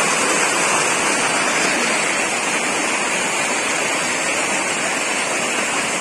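Small waterfall pouring over rock: a loud, steady rush of falling water close at hand.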